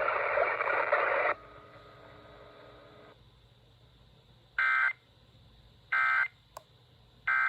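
Weather-radio EAS end-of-message data bursts: three short, harsh digital screeches about 1.3 s apart, closing the required weekly test. Before them, the broadcast's loud sound cuts off about a second and a half in, leaving a faint hiss and a thin steady tone.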